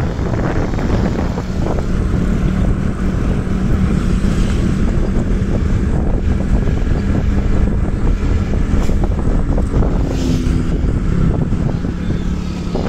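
Heavy wind buffeting the microphone on a moving vehicle, over a steady low engine hum.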